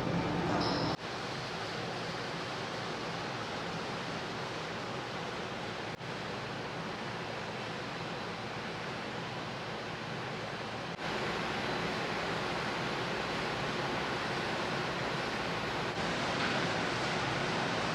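Steady rushing noise with no clear tone, stepping to a new level at sharp cuts about every five seconds.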